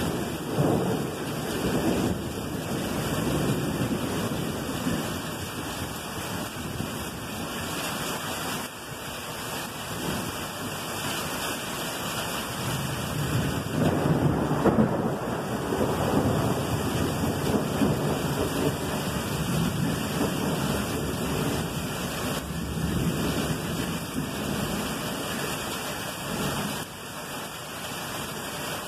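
Thunder rumbling in long rolling swells over steady rain, the loudest swell about halfway through.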